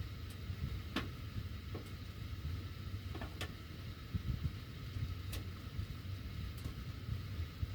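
Heating ductwork with the heat on: a steady low rumble of running air, broken by a few sharp metallic ticks at irregular intervals.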